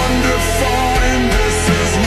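Slowed-down metal cover music with heavy reverb: distorted guitars, bass and drums playing an instrumental passage.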